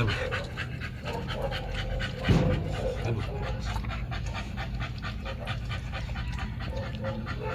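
American bully dog panting rapidly and rhythmically, several quick breaths a second. A brief, louder low sound comes about two seconds in.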